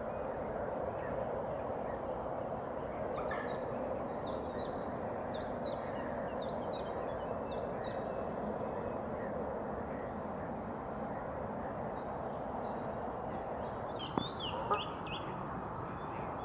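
A small songbird giving runs of short, high, falling notes, one run in the first half and a louder one near the end, over a steady background hiss. Two sharp ticks come about two seconds before the end.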